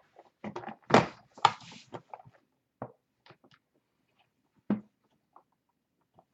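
Black briefcase-style card box being handled and opened: two loud clacks about a second in, then a few soft clicks and one more knock before the lid stands open.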